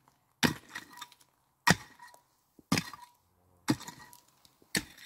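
Pickaxe striking stony gravel, loosening the pit wall: five blows about a second apart, each with a short metallic ring as the blade hits stones.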